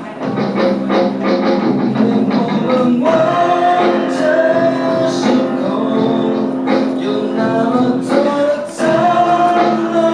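A band playing a song with singing: held, wavering sung notes over a rhythmic accompaniment.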